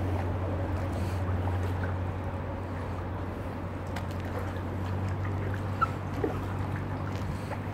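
Kayak being paddled on calm canal water: small splashes and drips from the paddle, over a steady low hum.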